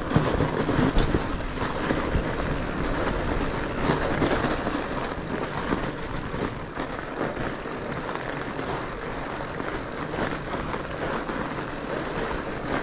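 Fat bike rolling along a snowy trail: steady tyre noise broken by irregular crunches and knocks.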